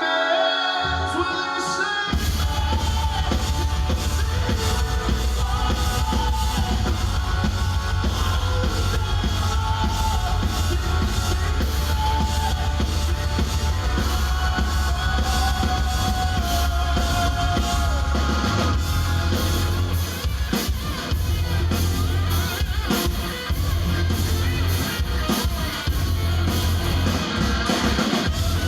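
Metalcore band playing live: heavy drums and distorted guitars with sung vocals. A lighter opening gives way to the full band about two seconds in.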